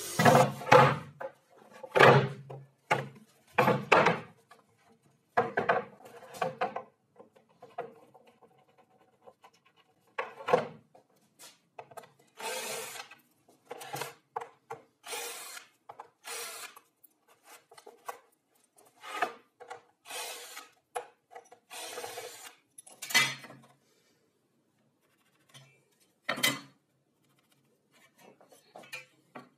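Wooden boards being handled on a wooden workbench: an irregular string of short scrapes, rubs and knocks of wood on wood with quiet gaps between them, loudest in the first few seconds.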